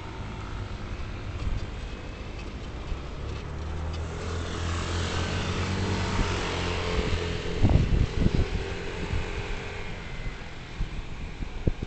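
Road traffic heard from a moving vehicle: a motor vehicle's engine hum and tyre hiss swell over the middle few seconds and then fade. There is wind buffeting on the microphone.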